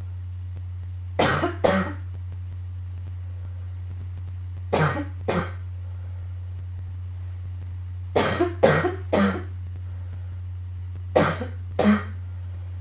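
A girl coughing in four short bouts, two or three coughs each, a few seconds apart, over a steady low hum.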